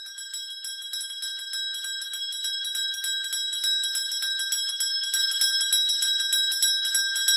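A school bell ringing continuously with rapid, closely spaced clapper strikes over a few steady ringing tones, growing gradually louder.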